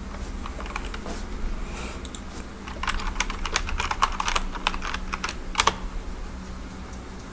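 Computer keyboard typing: a quick run of keystrokes beginning about three seconds in and lasting about three seconds, with one louder keystroke near the end, over a faint steady low hum.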